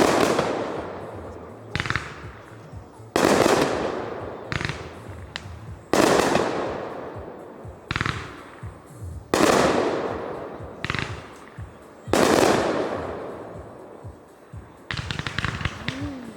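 Aerial fireworks shells bursting: five loud booms about three seconds apart, each with a long echoing rumble. Smaller pops and crackles fall between them, and a burst of crackling comes near the end.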